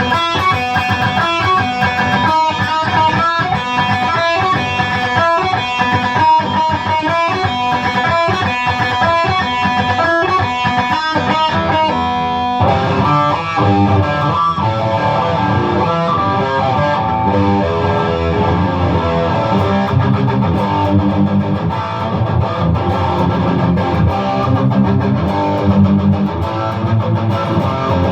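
Electric guitar played through a Blackstar tube amp. It starts with distinct picked single notes, then about twelve seconds in changes to thicker, fuller playing with more low end.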